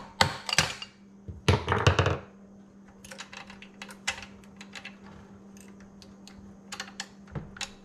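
Sharp knocks in the first two seconds, then lighter clicks and clinks of metal parts: a rubber mallet knocking loose an RTV-sealed valve cover on a Briggs & Stratton Vanguard 18 hp V-twin engine, which is then lifted off and handled.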